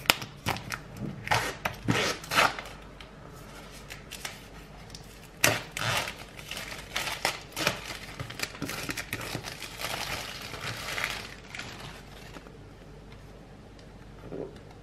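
Peeling the clear seal tabs off a cardboard product box and handling it: a run of sharp clicks and scrapes in the first few seconds, a louder snap about five and a half seconds in, then rustling that dies away about twelve seconds in.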